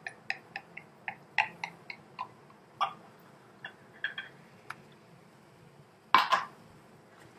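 Champagne being poured into a glass flute: a run of light, irregular clicks and clinks of glass as it fills. About six seconds in, a louder double clunk as the glass is set down on a glass tabletop.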